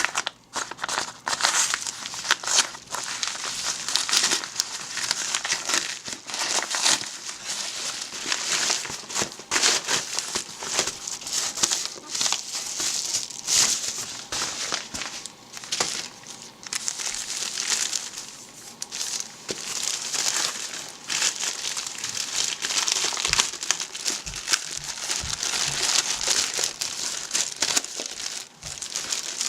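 Plastic packaging crinkling and rustling as it is handled, in a continuous run of irregular crackles.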